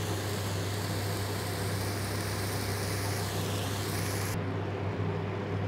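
Steady kitchen background noise, an even hiss over a low hum, with the pot of masala cooking on the stove. The highest part of the hiss cuts off suddenly about four seconds in.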